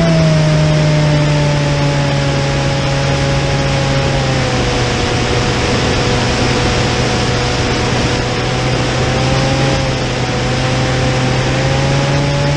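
Onboard sound of a radio-controlled model aircraft in flight: its motor runs at a steady note that sags a little about four seconds in and climbs again near the end, over a constant rush of wind past the airframe.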